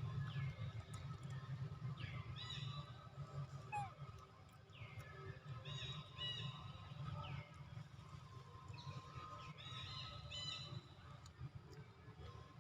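Animal calls: short, high calls that fall in pitch, coming in clusters every couple of seconds over a steady low rumble.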